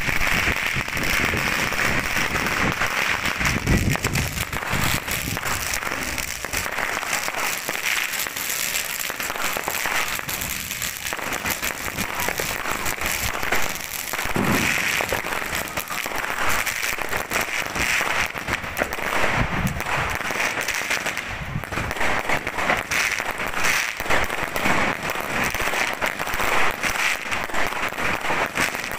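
Dense, continuous crackling of many fireworks and firecrackers going off at once, with a few deeper booms scattered through.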